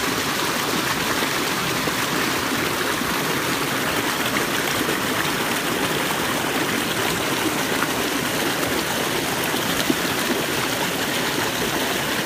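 Creek water rushing steadily over rocks in a small cascade.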